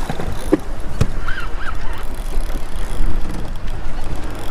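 Wind buffeting the microphone over choppy water while a hooked red drum splashes at the surface beside the boat, with a couple of sharp knocks in the first second and two short high chirps about a second and a half in.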